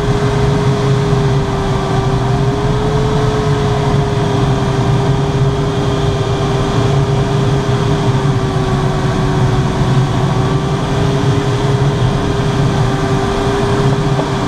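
Steady rush of air in the cockpit of a Grob Twin Astir glider in flight, with a single steady tone that wavers slightly in pitch.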